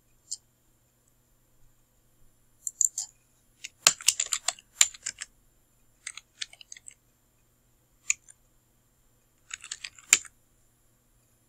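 Typing on a computer keyboard: short bursts of keystrokes with pauses between them, plus a single click shortly after the start.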